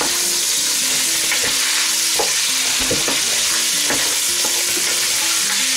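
Floured beef cubes sizzling in hot oil in a stainless steel pot as they sear, stirred with a large wooden spoon that knocks against the pot a few times.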